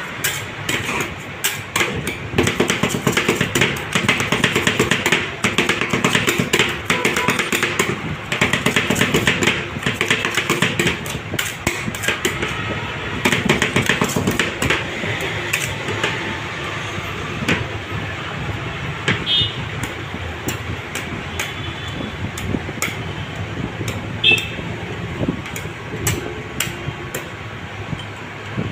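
Metal spatulas chopping and scraping chocolate ice cream on the chilled steel pan of a tawa ice cream counter. Rapid, clattering knocks of steel on steel for about the first half, then slower scraping with occasional taps as the ice cream is spread flat.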